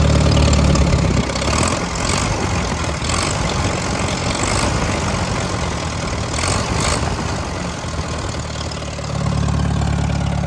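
Old farm tractor's carbureted engine running, freshly started after its carburetor was cleaned and refitted. Its steady low beat loosens about a second in and settles back near the end.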